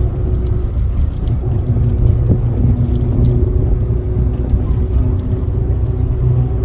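Steady low engine and road rumble heard from inside a moving vehicle's cabin.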